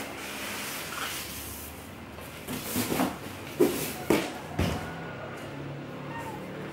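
A cardboard box being lifted off a PC case packed in styrofoam and a plastic bag: cardboard scraping, plastic rustling and a few short knocks, most of them between about three and four and a half seconds in.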